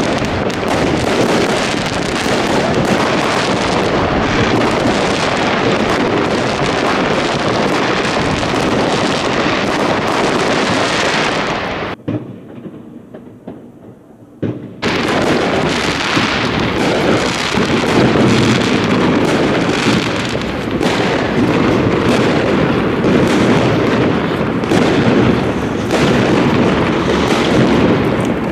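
Fireworks going off in a rapid, continuous barrage of bangs and crackles. It drops away abruptly about twelve seconds in for some three seconds, then starts again.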